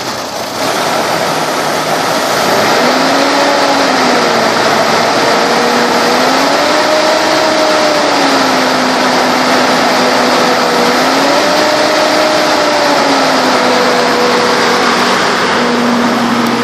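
2003 GMC Envoy XL's Vortec engine idling steadily just after starting, with a whine that slowly rises and falls in pitch a few times.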